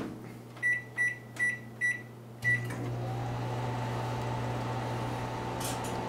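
Microwave oven keypad beeping five times, about half a second apart, as a cooking time of 99 minutes 43 seconds is entered and start is pressed. The oven then starts running with a steady hum, and a faint whine rises and settles as it gets going.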